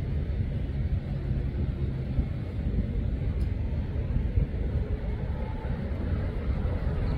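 Steady low rumble of a twin-engine jet flying in on landing approach with its gear down, heard from some way off.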